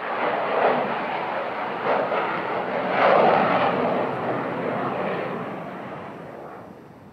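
Avro Vulcan bomber's four Rolls-Royce Olympus jet engines in a flypast, a loud roar that peaks about three seconds in and then fades as the aircraft climbs away.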